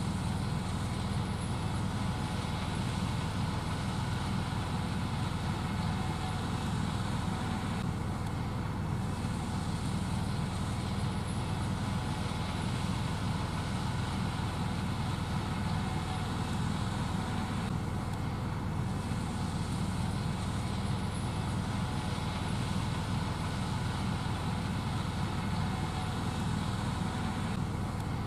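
Gleaner S78 combine running steadily while shelling corn: an unbroken, even drone of engine and threshing machinery.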